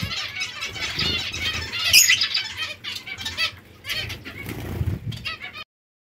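Zebra finches calling: many short chirps overlapping, with a sharp click about two seconds in.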